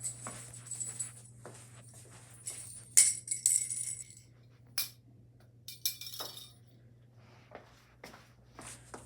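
Small metal pieces jingling and clinking in a short loud cluster about three seconds in, followed by a few sharp clicks, over a low steady hum.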